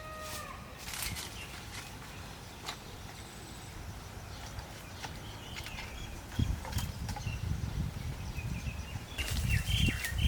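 Outdoor ambience with small birds chirping now and then, and scattered clicks. From about six seconds in, a low, uneven rustling and knocking of handling or movement grows louder.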